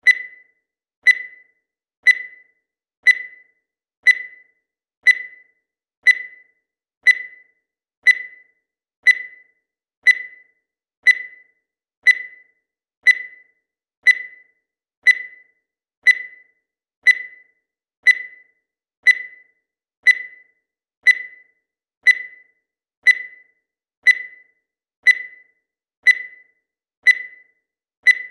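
Digital timer beeping once a second: a short, high electronic beep each second that fades quickly, counting off the seconds.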